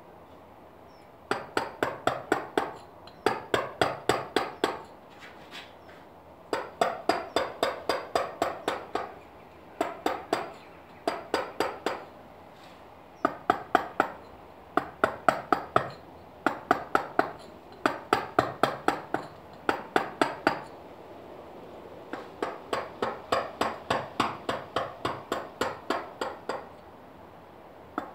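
Mallet striking a chisel to carve limestone: quick sharp taps about six a second, in runs of one to three seconds with short pauses between them.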